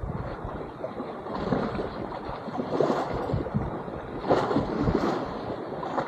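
Sea water sloshing and splashing close to the microphone in uneven surges, with some wind on the microphone.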